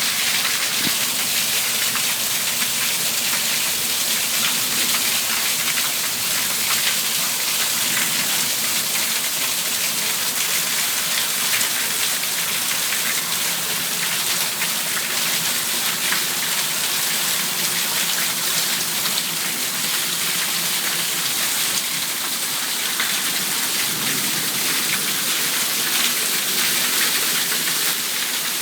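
Rain falling steadily, with water spilling from overflowing gutters and splashing onto a balcony: a dense, even hiss and patter that doesn't let up.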